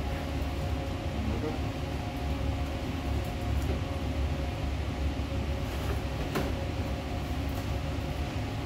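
Steady low machinery hum of a cruise ship's galley, ventilation and onboard machinery droning without pause, with a short click about six seconds in.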